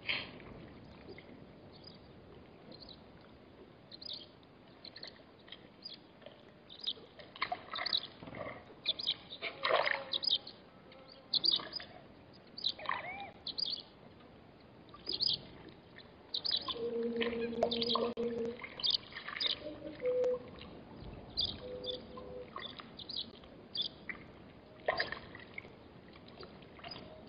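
Small birds chirping and calling on and off, with a steady low note held for about a second and a half about two-thirds through.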